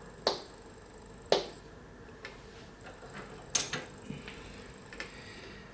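Sharp clicks and light taps of small hard parts being handled: two single clicks about a second apart, then a quick cluster of clicks a little past the middle and a few lighter ones after.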